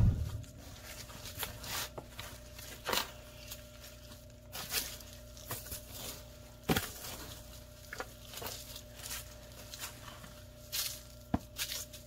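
A small hand cultivator's metal tines scratching and raking through moist worm compost and shredded paper bedding in short, irregular strokes, turning the bin to aerate it.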